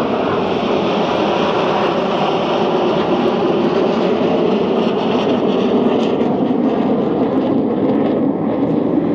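Formation of Red Arrows BAE Hawk T1 jets, each with a single Adour turbofan, flying past. Their jet noise is loud and steady and eases slightly near the end.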